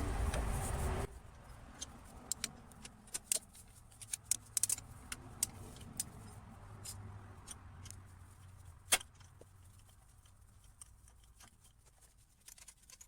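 Scattered metallic clicks and clinks of a socket wrench and loose tools working on the A/C compressor's 1/2-inch mounting bolts, with one sharper click about nine seconds in. A second of louder noise at the start cuts off suddenly.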